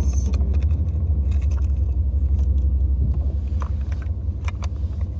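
Steady low rumble of a car riding along, heard from inside the cabin, with scattered small clicks and rustles over it.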